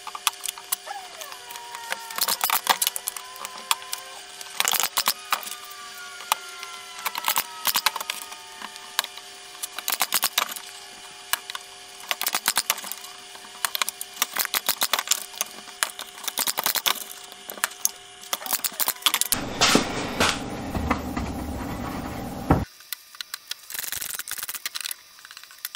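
A cordless brad nailer fires at irregular intervals while cedar pickets and rails knock against each other as they are fastened. A steady hum runs underneath. From about 19 s to 22 s there is a louder rushing noise lasting some three seconds.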